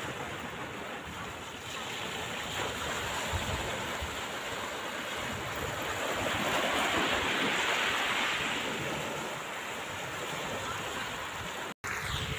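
Small sea waves washing up onto a pebbly shore, one wash swelling louder midway, with wind buffeting the microphone.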